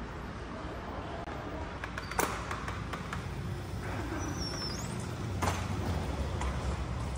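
Steady low outdoor rumble, growing slightly louder. Two sharp knocks come about two and five and a half seconds in, with a brief faint high chirp between them.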